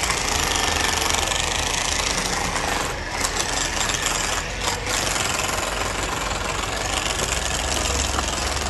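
A large diesel engine of heavy machinery running steadily, with a constant low rumble under a loud, noisy hiss.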